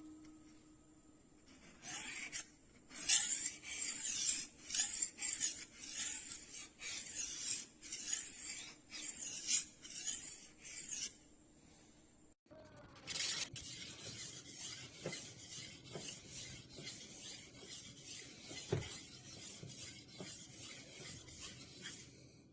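Steel knife edge being ground by a rolling knife sharpener's abrasive disc, pushed back and forth in repeated rasping strokes. The strokes come unevenly at first, pause briefly about halfway, then resume in a quicker, steadier run.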